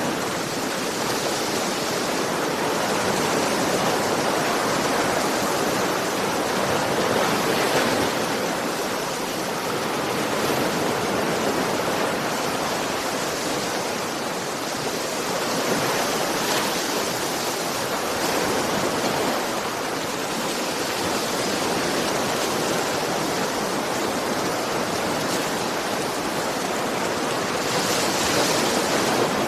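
Ocean surf: a steady rushing wash of water that swells and eases every few seconds.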